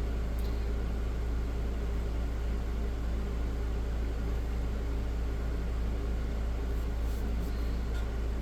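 Steady low electrical hum with a faint hiss behind it.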